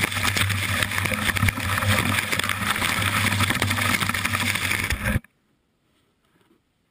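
Rough rushing of wind and crackling snow scrape on an action camera's microphone while snowboarding, over a steady low rumble. It cuts off abruptly about five seconds in, leaving near silence.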